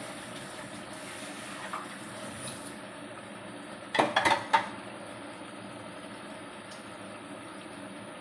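Spice sauce simmering in a wok over a gas burner: a steady bubbling hiss. About four seconds in comes a brief cluster of sharp knocks.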